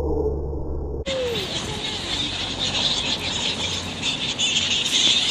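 A muffled low rumble cuts off about a second in, giving way to many birds chirping and calling at once over a steady outdoor hiss.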